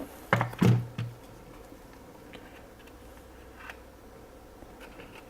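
Handling knocks and clicks from an opened Yongnuo YN685 speedlight as its loose internal connector is pressed back into its socket: three sharp knocks close together in the first second, then a few faint clicks.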